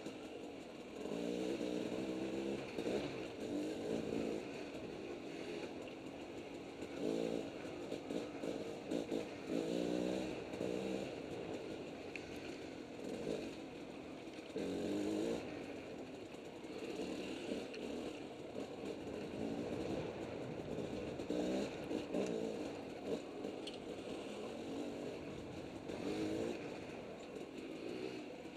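Two-stroke dirt bike engine heard close up from the bike, revving up and falling back again and again as the throttle is opened and closed along a twisting trail.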